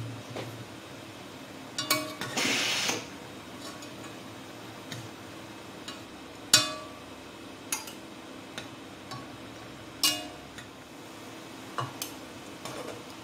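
Metal tongs clinking against a pan and a stainless steel bowl as poached mushroom pieces are lifted out of their cooking liquid: a handful of sharp clinks a second or more apart, with a short rushing noise about two and a half seconds in and a faint steady hum underneath.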